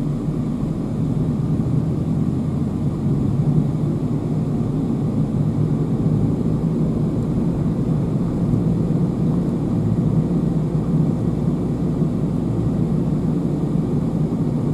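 Steady car engine and road noise heard from inside the cabin while driving: an even low hum with no change.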